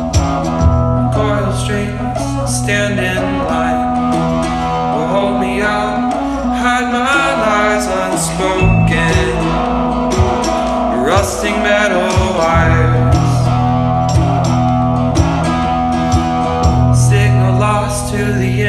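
Background music: a mellow song with plucked guitar, a steady bass line and singing.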